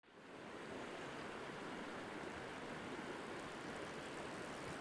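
Flowing river water, a steady rushing that fades in at the start.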